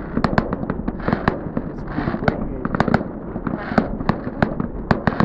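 Fireworks going off: a quick, irregular run of sharp bangs and crackles, several a second, over a steady crackling hiss.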